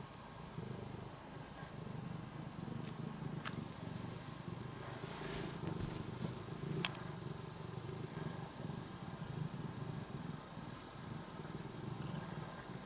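Domestic cat purring steadily while settling into a plush cat bed in a cardboard box. A couple of sharp clicks and some rustling of the bed and box come a few seconds in.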